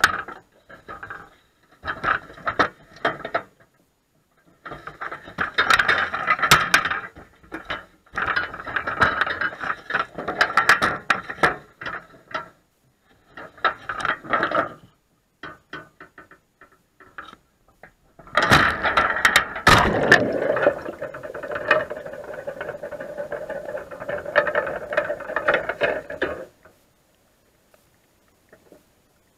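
Wire crab trap rattling and clanking in irregular bursts as it is handled, heard through the camera's waterproof housing fixed inside it, with a longer stretch of scraping and grinding about two-thirds through. The noise stops near the end, once the trap is underwater.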